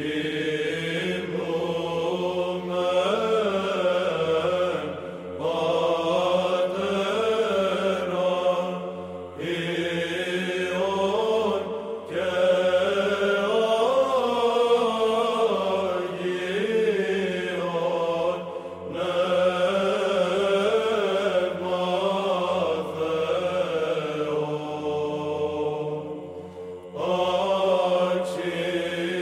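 Chanted sacred vocal music in the Byzantine style, sung slowly in melodic phrases a few seconds long with short breaths between them.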